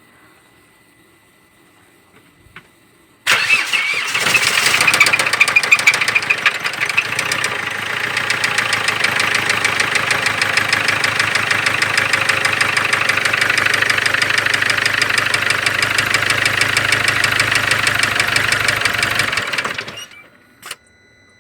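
Mercedes-Benz OM 651 four-cylinder diesel engine starting about three seconds in, running rougher and louder for a few seconds, then settling to an even idle with a fast, dense clatter, and shut off near the end. The owner hears a knock in the engine.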